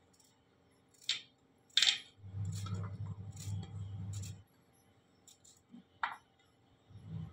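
Knife slicing a hand-held raw potato into thin strips over a stainless steel plate: a few sharp metallic clinks as the knife and falling potato pieces hit the plate, the loudest about two seconds in, with a duller low thudding for about two seconds in the middle.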